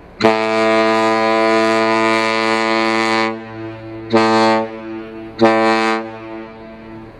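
Train horn sounding one long blast, then two short blasts, with a quieter steady tone holding between them.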